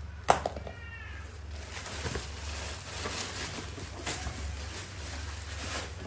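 A sharp click about a third of a second in, then a baby macaque gives one short, high, arching squeak. Light taps and rustling follow as it clambers on a woven plastic basket.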